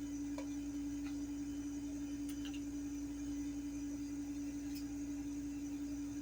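A steady hum at one pitch, with a few faint clicks from the coin packaging being handled.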